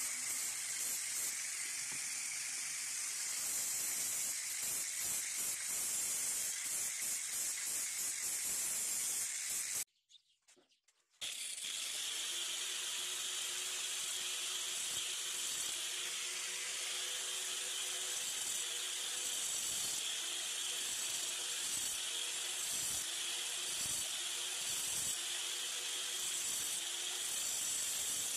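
Angle grinder running steadily, its disc grinding on rusty steel with a harsh hiss. The sound cuts out for about a second a third of the way in, then comes back with a steady motor whine under the grinding.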